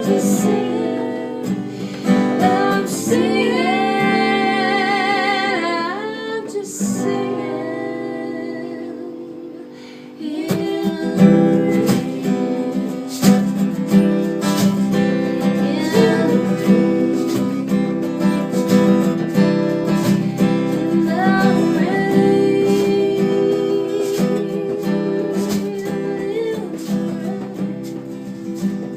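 Music: singing with held, wavering notes over acoustic guitar for the first several seconds, fading down near ten seconds, then strummed acoustic guitar chords without voice.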